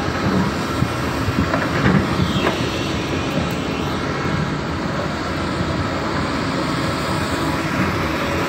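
Hydraulic excavators at work: diesel engines running steadily, with a few knocks and a short falling whine about two seconds in.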